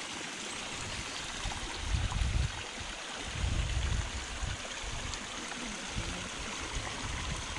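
Water running steadily in a mountain stream, an even rushing sound, with a few low rumbles on the microphone about two, three and six seconds in.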